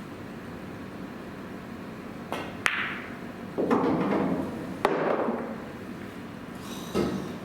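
Pool shots on a billiard table: a few sharp clicks of cue tip and balls striking one another, each followed by a rumble of balls rolling across the cloth.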